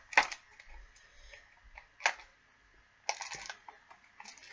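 A small cardboard candy box being opened by hand: two sharp snaps about two seconds apart, then a short burst of packaging rustle near the end.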